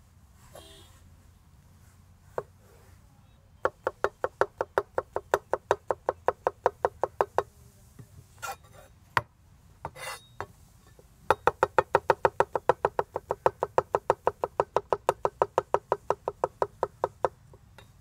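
Santoku knife slicing mushrooms on a cutting board: two runs of quick, even chopping knocks, about seven a second, with a few single knocks between them.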